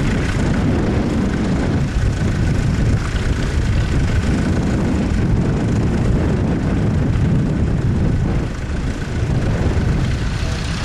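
Vintage tractor engine running steadily, pulling a plough, with a low rumble throughout.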